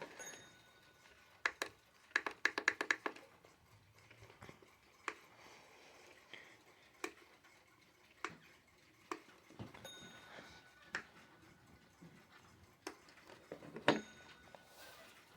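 Light clicks and taps from a cheap plastic alarm clock, irregularly spaced, with a quick run of about ten clicks two seconds in and a few brief high pings.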